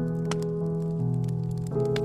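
Slow solo piano music with held notes and a new chord struck near the end, over the soft scattered crackle of a wood fire burning.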